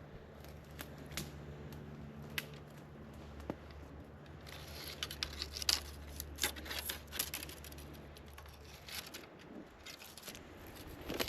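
Footsteps through forest undergrowth, dry leaves and twigs crackling and snapping underfoot, busiest about five seconds in. A faint low hum sits underneath for the first half.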